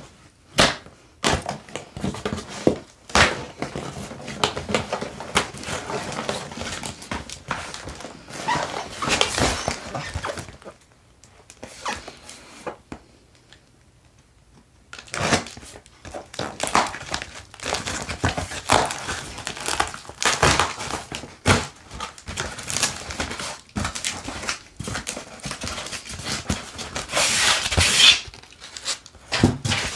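Cardboard shipping box being unpacked by hand: a knife cutting through the plastic packing strap and tape, cardboard flaps scraping and rustling in irregular bursts with a quiet pause about halfway through. Near the end a foam packing sheet and cardboard inserts are pulled out with a louder rustle.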